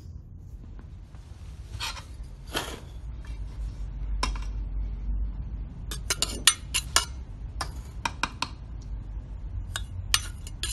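Metal scoop scraping and clinking against a metal pan and a steel compaction mold as moist soil is scooped into the mold. A few scrapes early on, then quick runs of sharp clinks in the middle and near the end.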